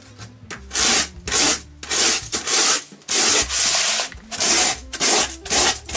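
Bent rasp scraping across pink foam board in quick, repeated strokes, about two a second, starting about a second in.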